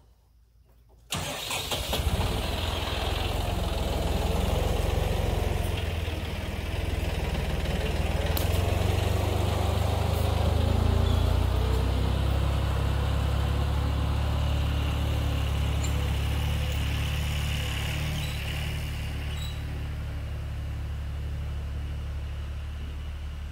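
Portable bandsaw sawmill's engine starting suddenly about a second in, then running steadily with a strong low hum that eases off slowly toward the end.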